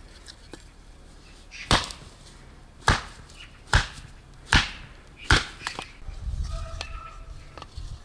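Five heavy chopping blows, about one a second, each a sharp strike with a short ringing tail. A low rumble follows near the end.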